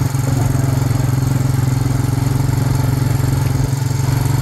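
Four-wheeler (ATV) engine running steadily under way.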